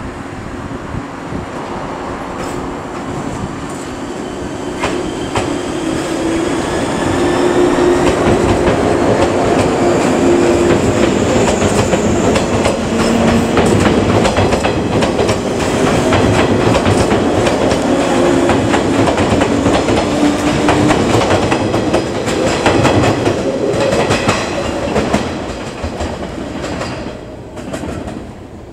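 A six-car 115-series electric train pulling away and passing close by: a motor whine rising in pitch and wheels clacking over rail joints, building up over the first several seconds and falling away near the end.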